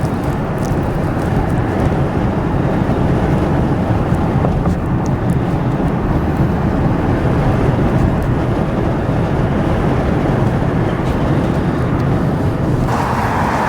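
Steady, loud low rumble of a moving vehicle, without breaks; a brighter hiss joins near the end.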